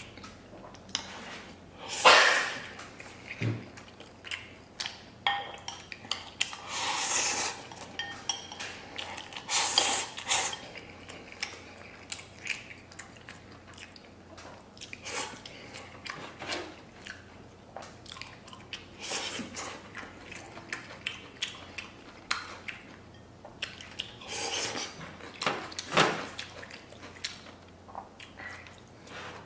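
Someone eating braised noodles: repeated slurps of noodles, wet chewing, and chopsticks clicking against a porcelain bowl.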